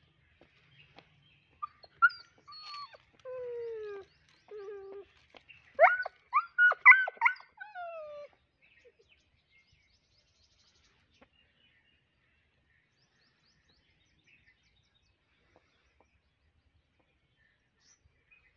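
Dog whining and yelping while held down to have ticks pulled off: a string of falling whines starting about two seconds in, then a burst of louder yelps, stopping after about eight seconds.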